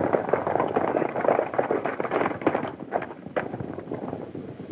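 Hoofbeats of several horses breaking into a gallop and riding off over dirt: a dense, irregular clatter.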